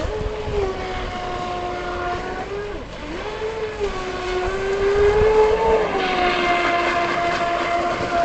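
Electric RC hydroplane's 2200 kV four-pole brushless motor running on 3S LiPo, a steady high whine as the boat runs at speed. The pitch dips about three seconds in, climbs, then falls back a little after five and a half seconds.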